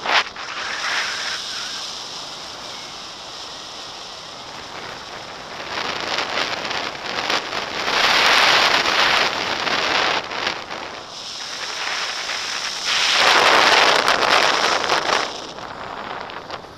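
Wind rushing over a pole-held action camera's microphone in paragliding flight: a steady hiss that swells into two loud buffeting gusts, about halfway through and again a few seconds later.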